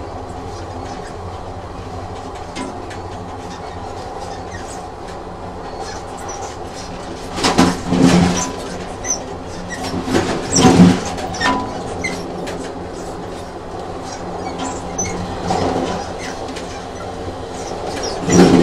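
Train running on rails: a steady rumble with the clatter of wheels on track, swelling into louder clattering about seven to eight seconds in, again around ten to eleven seconds, and once more at the end.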